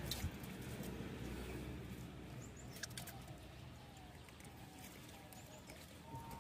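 Soft rustling of grass and a few light clicks as small fish are picked up by hand and dropped into pots, with faint bird calls in the background.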